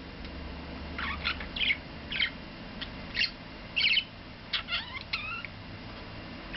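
Budgie chirping: a string of short, high chirps, some rising in pitch, coming in scattered bursts from about a second in.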